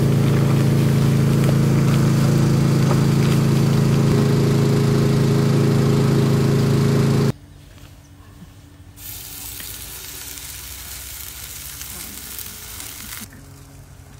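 A loud, steady hum with several held pitches cuts off abruptly about seven seconds in. After a short lull, pancake batter sizzles in hot oil in a frying pan for about four seconds.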